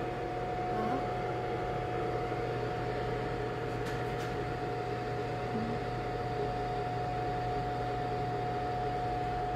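Presto Dehydro food dehydrator running, its fan giving a steady hum with a constant high tone over it.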